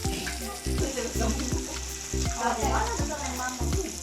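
Pork belly sizzling on a grill, a steady frying hiss, under background music with low bass notes changing about every half second.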